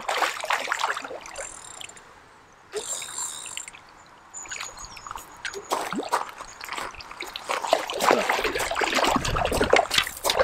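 Water splashing and trickling in irregular bursts: a few near the start, a lull, then busier and louder in the second half.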